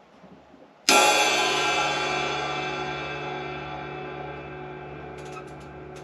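Paiste Formula 602 16-inch flat ride cymbal struck once about a second in, then ringing with many overtones and slowly fading. A few faint ticks near the end.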